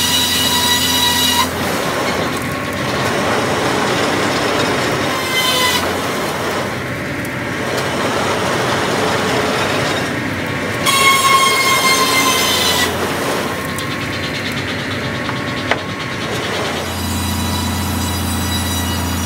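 KARA field circular sawmill running, its large circular blade sawing through a log, with a high whine that comes and goes as the blade cuts and once drifts slightly down in pitch.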